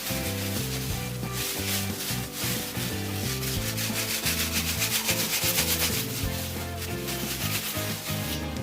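Background music with a shifting bass line, under a continuous rough rasping noise.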